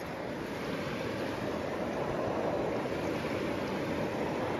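Steady rush of flowing river water, a little louder from about two seconds in.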